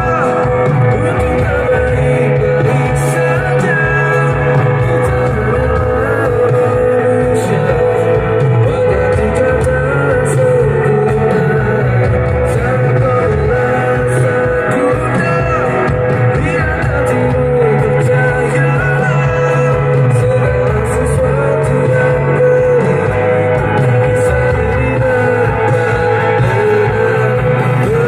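A live band played through a large concert line-array PA: singing over guitar and a bass line with a steady beat.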